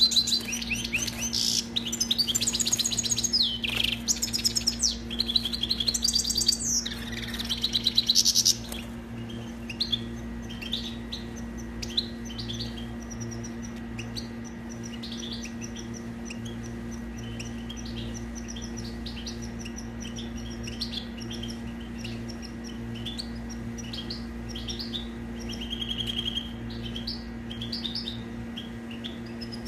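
European goldfinch singing. It gives loud, fast twittering song phrases for the first eight seconds or so, then quieter, softer twittering and chirps for the rest, over a steady low hum.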